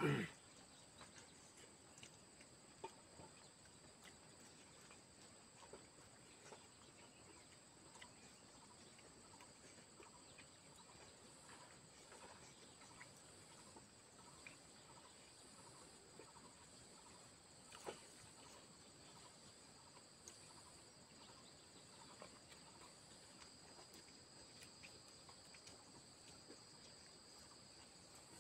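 Faint outdoor insect chorus of crickets: two steady high-pitched tones that run unbroken, with scattered faint ticks. A brief, louder falling call right at the start.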